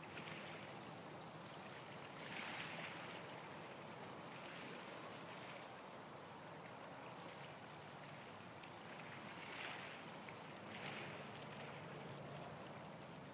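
Small waves lapping and washing against shore rocks: a faint steady wash with a few louder surges, about two and a half, ten and eleven seconds in.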